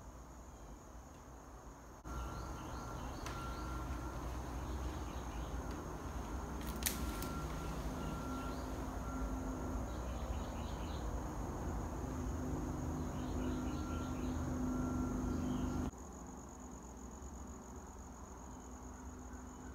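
Steady high-pitched insect trill with short bursts of bird chirps and repeated short, even whistled notes. A sharp click comes about seven seconds in. A louder low rumbling noise starts suddenly about two seconds in and stops suddenly near sixteen seconds.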